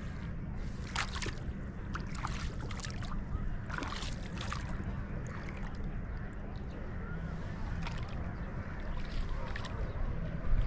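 Lake water sloshing against a small rowboat, with short irregular splashes over a steady low rumble.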